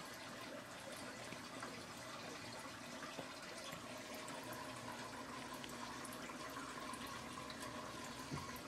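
Steady, fairly quiet running and trickling of water circulating in an aquarium, under a faint steady hum, with scattered tiny ticks.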